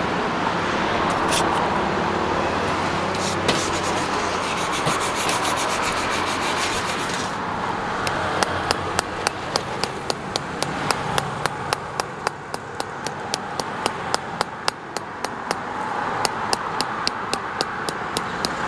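A stiff wooden-backed brush scrubbing a strip of charred buffalo skin on a wooden stump, in quick, even strokes about three a second from about eight seconds in. It is brushing the burnt char off so that the skin comes out clean and pale.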